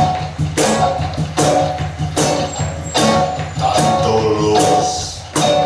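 A live band playing an instrumental passage without singing: a steady beat with a bright percussive stroke about every 0.8 s, over bass and a melody line.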